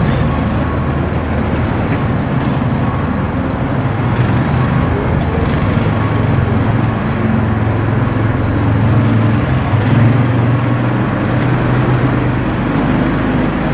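ATV engine running while riding, a steady drone whose pitch steps up and down a little as the throttle changes.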